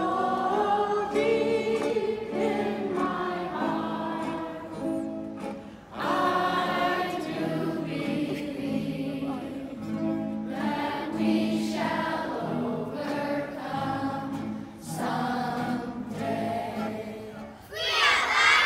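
A large choir of schoolchildren singing a slow song in long held notes. Near the end it gives way to children shouting and cheering.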